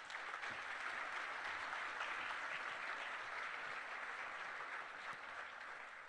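Audience applauding steadily, easing off slightly toward the end.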